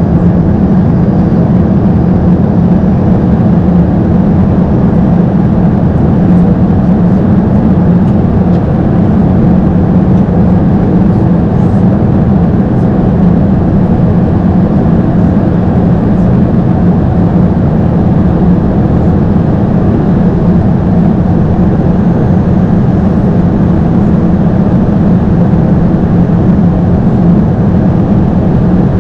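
Airbus A220-300 airliner noise: a steady, loud rush of airflow and engine rumble with a strong low hum.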